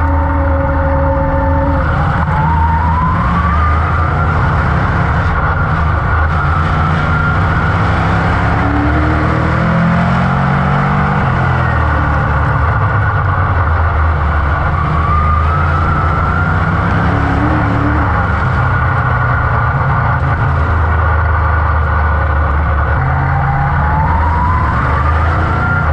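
602 Crate Modified's GM 602 small-block Chevrolet V8 running hard at racing speed, heard from inside the cockpit. The pitch rises in three long sweeps as the car accelerates onto the straights and drops back as it lifts into the turns.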